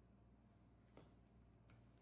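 Near silence: room tone with a faint tick about a second in and two fainter ones near the end.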